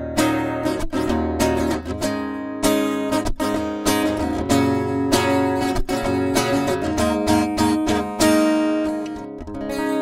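Ovation Custom Legend 1869 roundback acoustic-electric guitar strummed in rhythmic chords, with its EQ boosted for a brighter tone. A last chord is struck about eight seconds in and left to ring.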